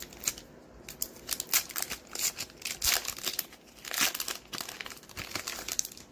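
Foil wrapper of a Pokémon booster pack being torn open and crinkled by hand, with irregular crackles as the wrapper is pulled apart to get at the cards.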